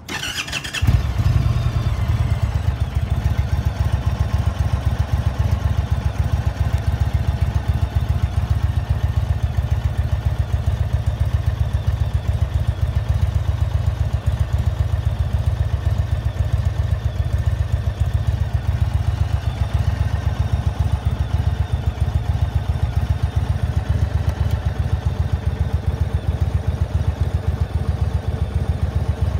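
2020 Indian Roadmaster Dark Horse's Thunder Stroke V-twin engine cranked by the electric starter, catching about a second in, then idling steadily with an even, pulsing beat.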